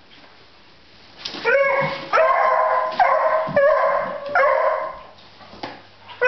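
Beagle puppy barking in a run of about five long, drawn-out barks, starting about a second in, with another near the end.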